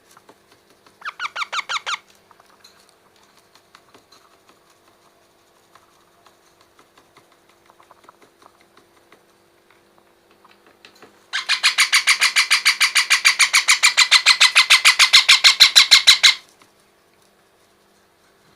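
Parrot chick calling in rapid, evenly repeated harsh notes, about eight a second: a short burst about a second in, then a long run of about five seconds later on. Faint scattered ticks and scratches come between the bursts.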